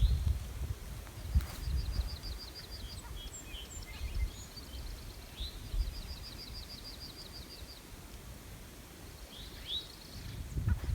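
A small songbird sings fast, even trills of high notes, twice, with a few scattered chirps between. Wind rumbles on the microphone underneath.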